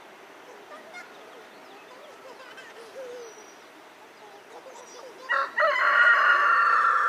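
A rooster crowing once, loud and drawn out for over two seconds, starting about five seconds in after a quiet stretch with a few faint high bird chirps.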